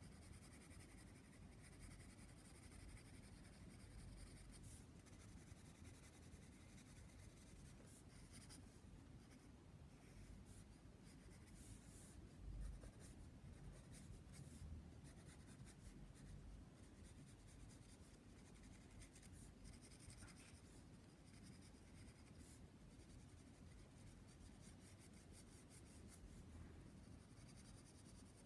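Faint graphite pencil scratching and gliding over sketchbook paper in short, irregular shading strokes, with one soft bump about twelve seconds in.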